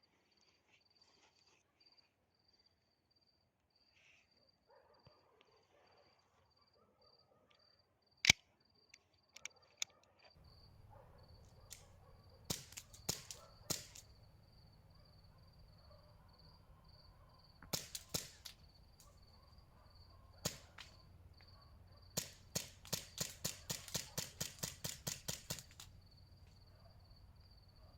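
Airsoft M9A3 pistol fitted with an FMA SF T1 tracer unit, firing sharp shots. There is one loud shot, then scattered single shots and pairs, then a quick string of about fourteen shots near the end. A cricket chirps steadily throughout, and a low steady hum comes in about a third of the way through.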